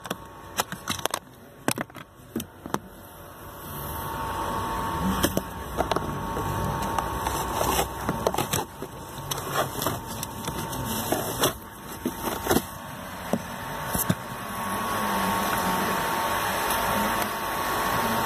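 Sharp plastic clicks and knocks as the Renault Clio's cabin filter cover clips are pressed and the cover is worked free, densest in the first few seconds. A steady hiss comes up about four seconds in.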